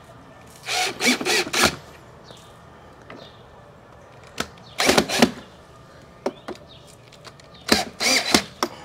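Craftsman 19.2-volt cordless drill driving screws into a plastic wall bracket, running three times for about half a second to a second each while the screws are snugged tight.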